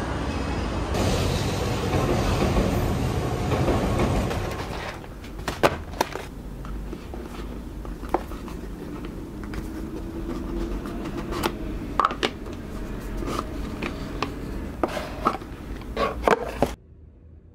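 Steady traffic rumble for about four seconds, then a quieter room with scattered light clicks and knocks, cutting off abruptly near the end.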